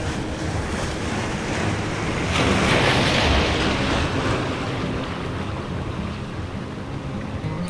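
Sea waves washing over shoreline rocks, with wind buffeting the microphone; one wash swells louder about two to four seconds in.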